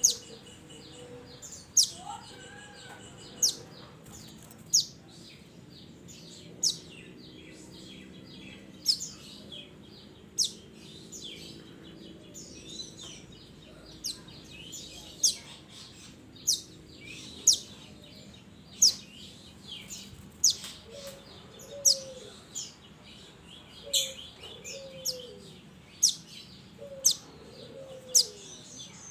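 Minivet calling: short, sharp, high-pitched notes repeated about once a second, with a few fainter, lower falling notes in the second half.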